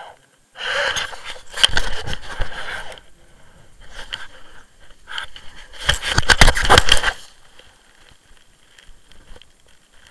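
Clothing rustling and scraping against the camera microphone as the camera is moved, in two loud crackling bursts: one starting about half a second in and lasting about two seconds, a second about six seconds in.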